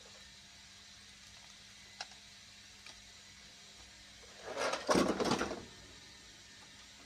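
Parts of a laser printer being handled during disassembly: a small click about two seconds in, then a burst of scraping and rattling lasting about a second and a half, a bit over four seconds in.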